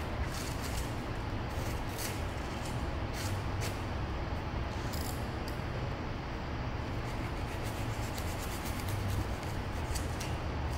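Small hand blade scraping and cutting into carved foam, in irregular short scratchy strokes, over a steady low hum.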